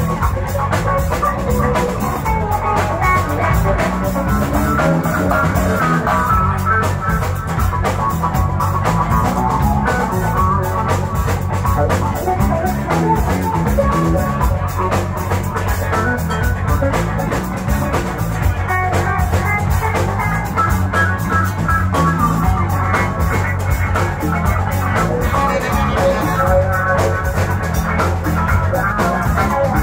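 Live rock band playing an instrumental passage with no singing: a steady drum-kit beat under electric bass, guitar and keyboards.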